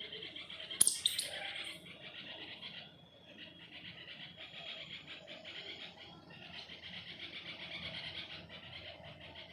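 Indian palm squirrels chirping: a fast, steady stream of high chips, easing off about three seconds in and then building again. A sharp click or knock sounds about a second in.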